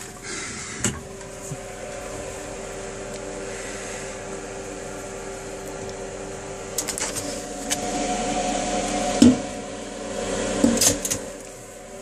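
Milk vending machine humming steadily, with a few sharp clicks and knocks as its glass door is opened and the glass milk bottle is taken off the filling nozzle. The hum grows louder for a few seconds near the end.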